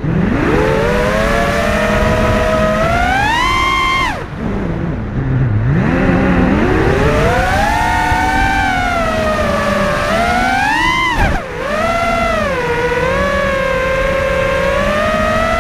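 FPV freestyle quadcopter's brushless motors and propellers whining, the pitch rising and falling with the throttle. About four seconds in the throttle is cut and the whine sinks low before climbing back; a second quick cut and punch-out comes near eleven seconds.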